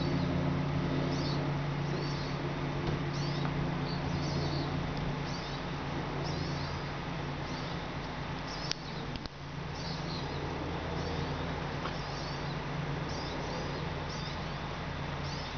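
A bird's short, high chirp repeated about every two-thirds of a second, over a steady low hum, with a single click about nine seconds in.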